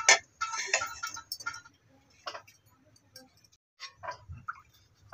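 Scattered light clicks, ticks and knocks of cookware: an aluminium pan being set on a gas stove and a metal ladle handled in it. There is a sharp click at the start and a cluster of clinks in the first second and a half.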